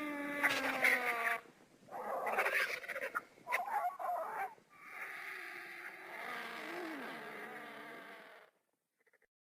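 Vulture calls: a drawn-out pitched call, then two harsher, noisier calls, then a long wavering call of about four seconds that cuts off suddenly.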